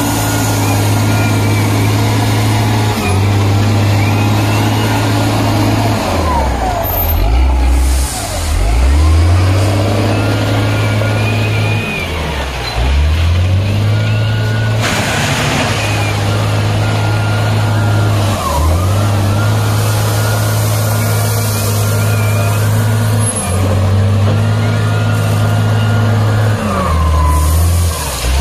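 Hindustan 2021D wheel loader's diesel engine running hard while it works. Its pitch drops and climbs back several times, with whines that rise and fall along with it, and there is a short burst of hiss about halfway through.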